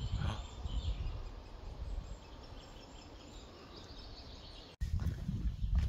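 Outdoor woodland ambience: faint bird chirps over a low rumble. The sound breaks off for an instant about five seconds in, and the rumble is louder after the break.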